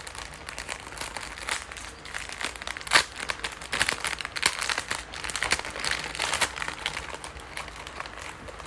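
Clear plastic packet crinkling and crackling as hands pull it open, in an irregular run of small crackles with one sharper, louder crackle about three seconds in.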